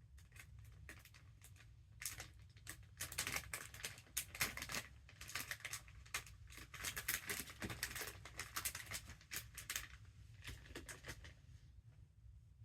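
A quick, irregular run of small clicks and crackles, loudest in the middle and fading out near the end, like something being handled or crinkled.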